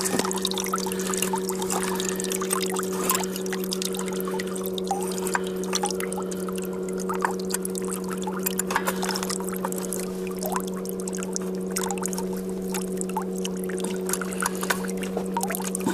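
Outboard motor idling with a steady low hum, while water splashes and trickles around the stern and transom bracket.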